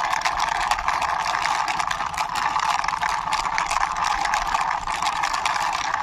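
Plastic toy dirt bike pushed along concrete, its wheels and gears giving a steady whirring with rapid fine clicking.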